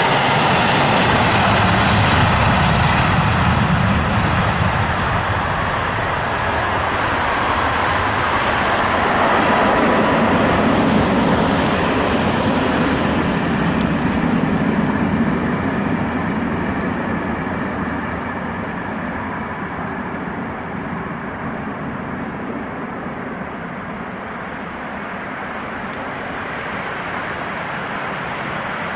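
Boeing 757-204F freighter's twin jet engines at takeoff thrust: a loud, steady rumble and hiss during the takeoff roll and lift-off. The sound then fades and loses its higher tones as the aircraft climbs away.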